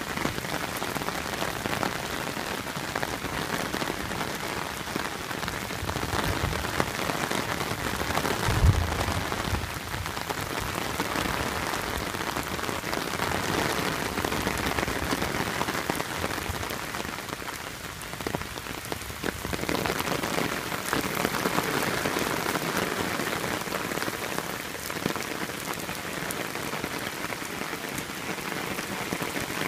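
Steady rain falling on a wet paved driveway and lawn, a continuous hiss of drops splashing on the pavement and puddles. A single low thump about nine seconds in.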